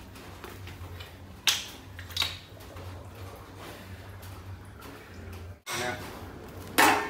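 A large metal cooking pot clanking as it is handled, with two sharp knocks early and a louder one near the end, over a steady low hum.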